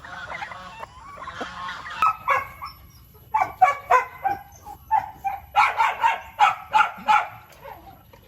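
Farm animal calling repeatedly: a rapid run of short, pitched calls, about two or three a second, after softer jumbled calls, stopping shortly before the end.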